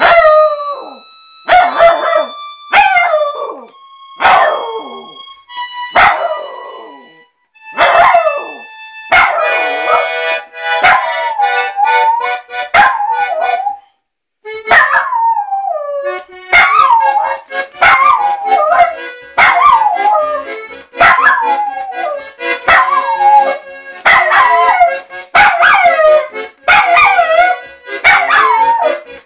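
A puppy howling along to music in a long run of short howls, each one falling in pitch, roughly one a second in the second half. Instrument notes sound with each howl, and a steady low chord holds underneath from about halfway in.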